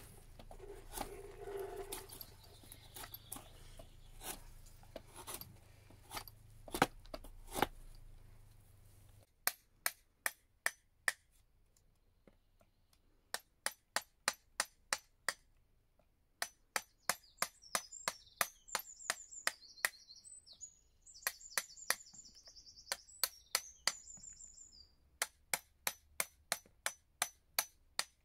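Drawknife scraping along a sycamore axe handle, with a few knocks, for the first nine seconds. Then a claw hammer taps a chisel into the wood in runs of sharp taps, about four a second, to rough out the handle's shape.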